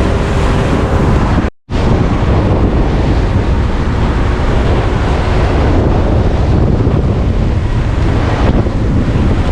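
Heavy wind buffeting the microphone on a boat under way, over the rush of water. The sound cuts out completely for a split second about one and a half seconds in.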